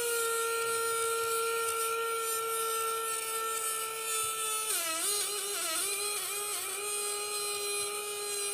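Small DC motor of a homemade bottle vacuum cleaner running with a steady whine. From about halfway in, its pitch dips several times over two seconds with a rush of airy hiss, the motor briefly loaded, then it settles back to a steady, slightly lower whine.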